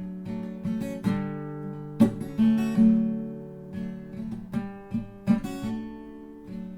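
Background music: acoustic guitar strumming chords, each strum ringing out and fading before the next.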